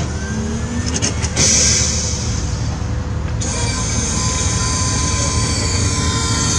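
Actuators of a Letrons transforming car robot running over a steady low rumble. A whine rises in the first second, a hiss runs from about a second and a half in to halfway, then a steady high whine holds to the end.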